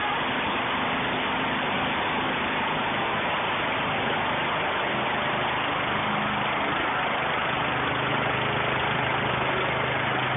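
Troy-Bilt Gardenway riding mower's engine running steadily as the tractor drives under its own power, a test run after fitting a new drive belt.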